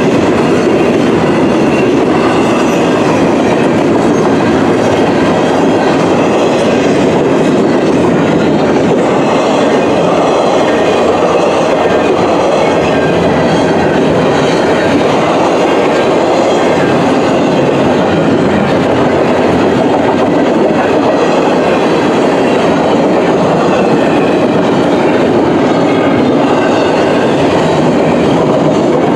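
Double-stack intermodal freight train's container well cars rolling past: a loud, steady rumble and clatter of steel wheels on the rails.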